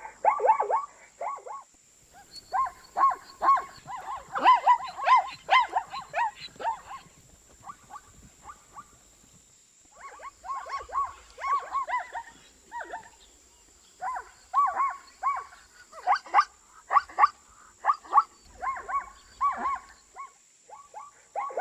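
Zebra calling: bouts of rapid, repeated short pitched calls, several a second, broken by brief pauses.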